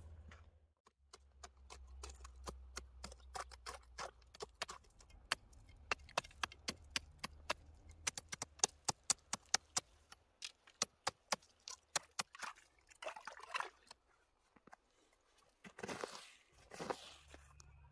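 A steel knife blade chipping at lake ice in a quick run of sharp, irregular taps, several a second. Near the end come crunching footsteps on snow-covered ice.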